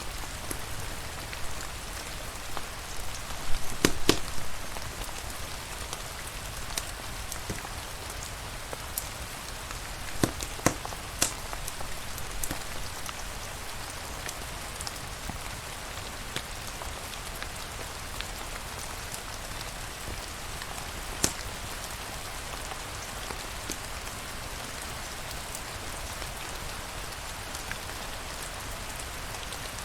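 Steady rain hiss with scattered sharp pops and crackles from a fireplace wood fire. The pops bunch together about four seconds in and again around ten to twelve seconds, with a single one a little past twenty seconds.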